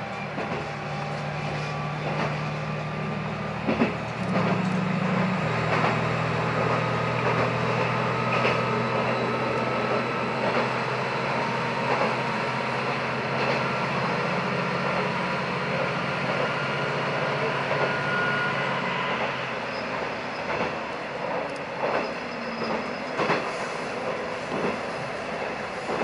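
KiHa 120 diesel railcar under way: a steady engine drone with wheels clicking over rail joints and a faint, slowly rising whine, heard inside a tunnel. About twenty seconds in the engine note drops away, leaving the wheel and rail noise.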